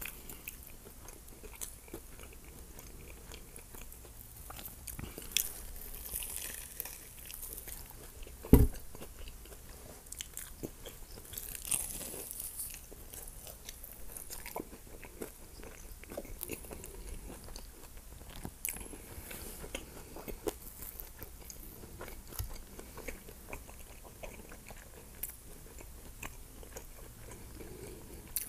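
Close-miked biting and chewing of a burrito coated in crushed Hot Cheetos, with crunching from the crispy coating and many small clicks throughout. One sharp, loud knock comes about eight and a half seconds in.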